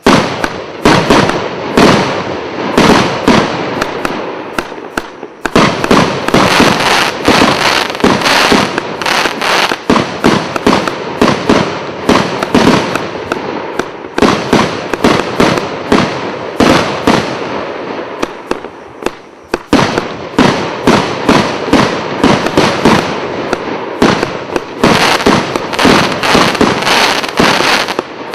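A 72-shot consumer fireworks cake with 25 mm tubes firing a continuous barrage: sharp launch reports and bursting shells at about two shots a second, easing briefly twice before picking up again.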